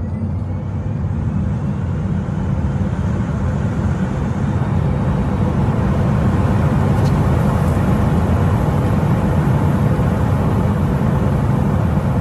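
Cabin noise in a Tesla Model S Plaid at full acceleration: a deep road-and-wind rush that grows louder as speed climbs and then holds. A faint rising electric-motor whine is heard in the first couple of seconds.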